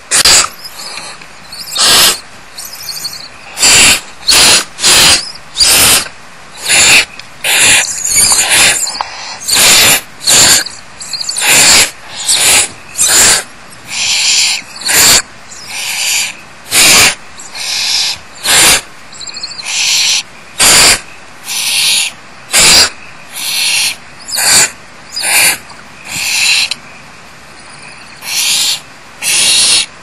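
Barn owlets giving harsh, hissing begging calls over and over, each under half a second, roughly one or two a second. The calls pause for a couple of seconds near the end.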